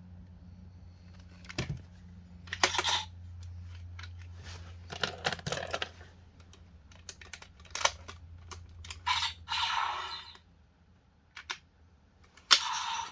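Hands handling a hard plastic toy sword, giving irregular sharp clicks and short scraping, rustling bursts. A steady low hum fades out about halfway through.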